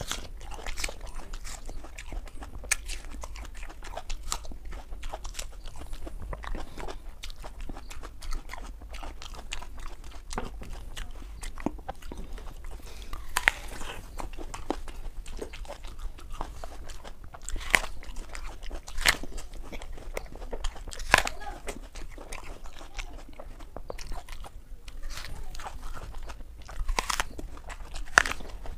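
Whole apples being bitten into and chewed: irregular crisp crunches, with several louder bites standing out.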